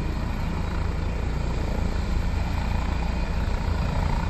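Helicopter running on the ground with its rotors turning: a steady low whir of rotor and turbine.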